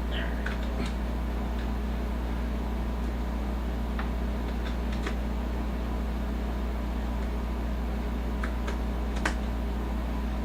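Steady low room hum with a few faint, scattered clicks: small plastic taps of the keyboard's USB plugs and cord being handled.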